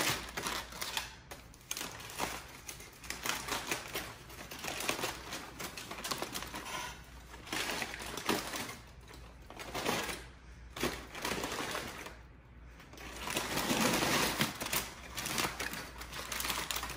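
Aluminum foil crinkling and crackling as it is pulled open from around a rack of smoked beef ribs, in irregular bursts with a couple of short lulls.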